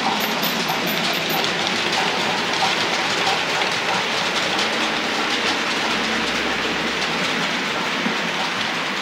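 Model railway train running along the track: a steady rattle of small wheels on rail, with faint quick clicks over rail joints and pointwork.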